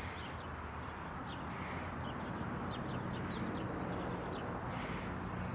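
Outdoor ambience: a steady rushing noise like wind on the microphone, with faint short bird chirps scattered through it.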